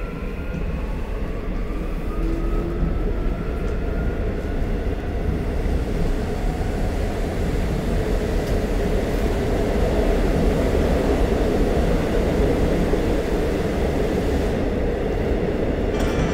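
Seoul Metro Line 1 subway train heard from inside the car, running with a steady rumble. A faint rising whine sounds in the first few seconds.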